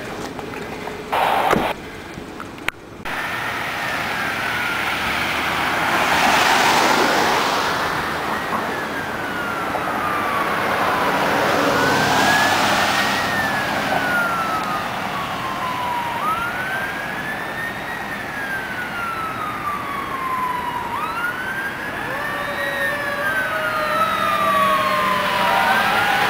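Fire sirens wailing for a structure fire call. Each wail rises quickly and falls slowly, repeating about every four to five seconds, and a second, lower siren joins near the end. Two louder rushes of noise come partway through, and there are a few sharp knocks about a second in.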